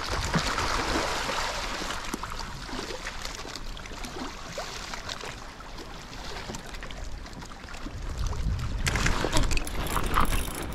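Sea water lapping and sloshing around a fishing raft's floats, with wind rumble on the microphone. Near the end, a few sharp clicks and knocks.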